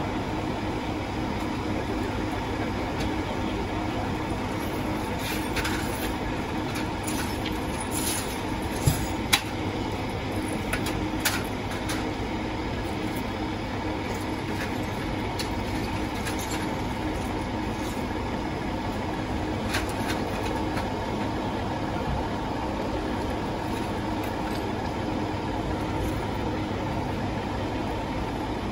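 Fire apparatus diesel engine idling steadily, with a few sharp knocks about nine and eleven seconds in.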